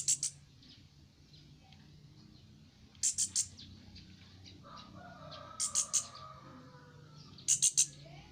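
Juvenile chestnut-capped thrush (anis kembang) giving quick bursts of three or four short, high chirps every two or three seconds, with a fainter, lower warbling call about five seconds in.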